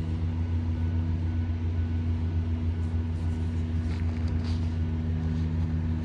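A steady, low mechanical hum from a running motor, unchanging throughout.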